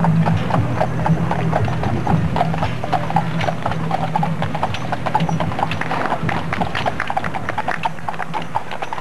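Hooves of teams of draft horses clip-clopping on asphalt, a dense, uneven run of hoof strikes, over a steady low hum.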